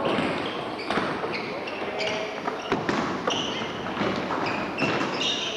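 Basketball game in a gym hall: a ball bouncing and knocking on the hardwood floor several times, with short high sneaker squeaks as players cut and stop.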